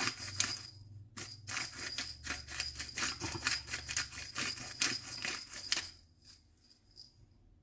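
Pepper grinder being twisted over a pan: a fast, uneven run of gritty clicks that stops about six seconds in, over a faint low steady hum.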